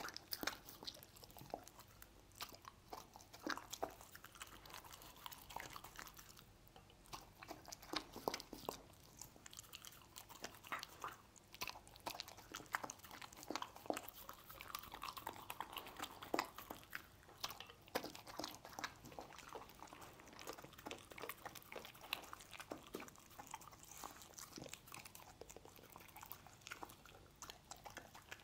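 A dog chewing pieces of stir-fried meat: many short, irregular clicks and crunches of its jaws and teeth.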